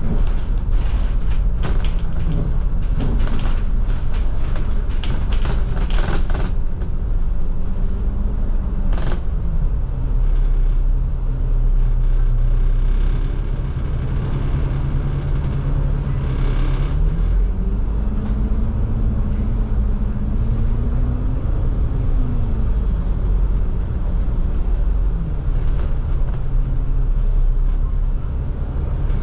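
Diesel bus engine and drivetrain heard from inside the moving bus. The engine note steps down about ten seconds in, climbs again around seventeen seconds and falls back around twenty-two seconds, as the bus changes speed and gear. Sharp rattling clicks sound through the first several seconds.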